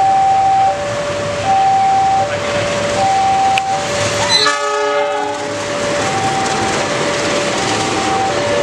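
Railway level-crossing warning alarm sounding a two-tone high-low signal, each tone about 0.7 s long, repeating steadily. About halfway through, a train horn sounds for about a second over it.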